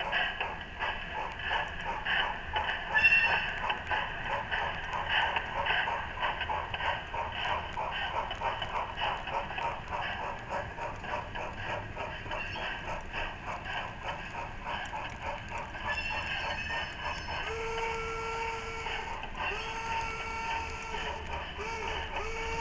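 Steam locomotive running with a quick, even chuff, then its whistle blowing long blasts in the last few seconds.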